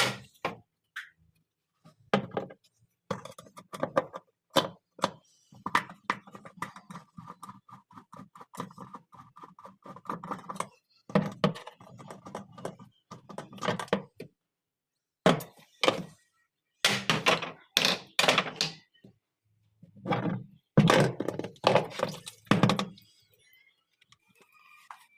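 Repeated irregular thunks and knocks from hand work on a washing machine's pulsator and tub, with a few seconds of rapid rattling in the middle.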